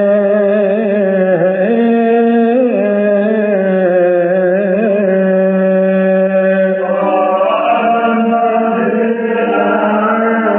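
Men's voices chanting a long, drawn-out Coptic liturgical melody on held vowels, with no clear words, the melody winding and ornamented above a steady low note. The sound grows fuller about seven seconds in.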